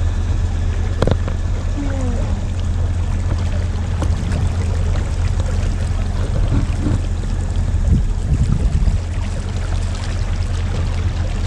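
Small self-drive motorboat under way: its engine makes a steady low drone while water rushes and splashes along the hull.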